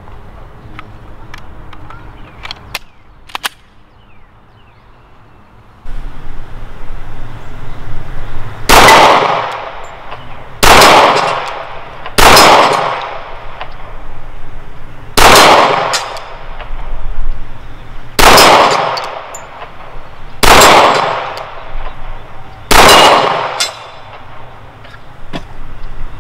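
Seven shots from a Glock 30 SF .45 ACP pistol, fired two to three seconds apart, with steel plate targets clanging on the hits. A few light clicks of handling come before the first shot.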